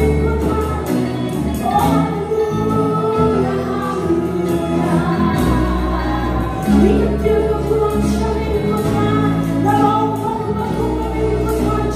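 Live gospel praise-and-worship song: several women singing together into microphones over a band of electric bass, acoustic guitar and drums, with steady low bass notes and a regular drum beat.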